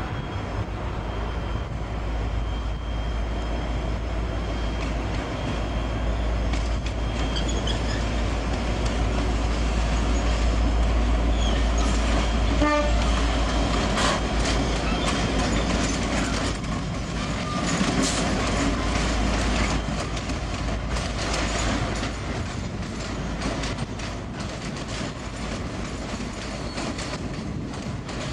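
V/Line diesel locomotive passing close by with a deep engine rumble that is loudest around the middle, followed by its passenger carriages rolling past on the rails. A brief horn toot sounds about halfway through.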